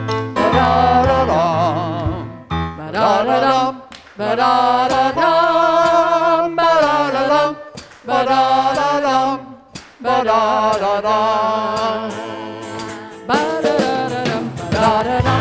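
Worship music: singing voices with vibrato over a sustained instrumental backing, in phrases of a few seconds with short breaks between them.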